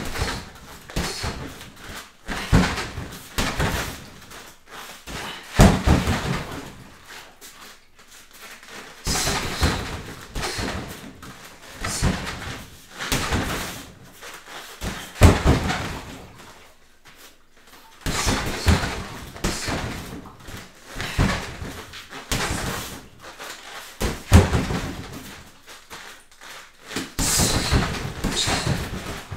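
Gloved strikes thudding into a Century freestanding punching bag, landing in short combinations with a cluster of hits every two to three seconds.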